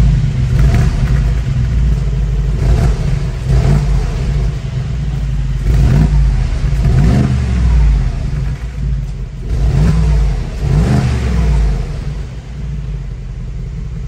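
Mercedes-AMG G63's 4.0-litre twin-turbo V8 blipped from idle about seven times, each rev rising and falling back to a low rumbling idle, heard at the twin exhaust tips with the exhaust flaps open.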